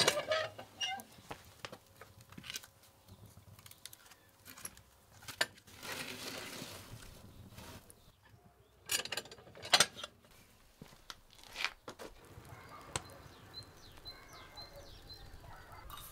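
Metal firebox door of a brick wood stove clanking open, then a run of knocks and scrapes as the fire is tended and wood is handled, with the loudest knocks about two thirds of the way through. Birds chirp faintly near the end.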